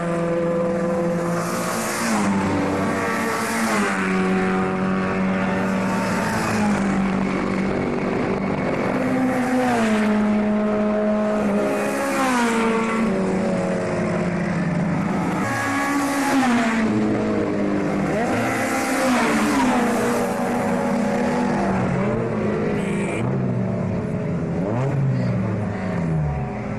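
Historic saloon racing cars passing one after another at racing speed, their engine notes repeatedly rising and falling in pitch.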